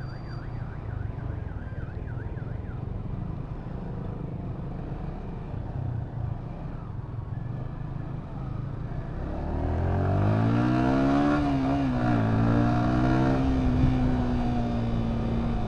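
Yamaha New Vixion Lightning's 150 cc single-cylinder engine running at low speed through a turn, then revving up as the bike accelerates, its pitch rising, dipping once, and rising again before holding steady. A warbling electronic alarm sounds over it in the first couple of seconds.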